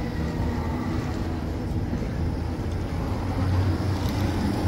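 Tram running, a steady low rumble that grows a little louder about three and a half seconds in.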